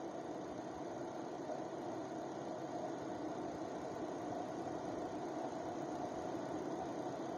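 Car engine idling hot with its electric radiator cooling fan running on high speed, a steady hum. The fan turns only on its high setting: low speed, though switched on, does not work, which points to the fan's external speed resistor.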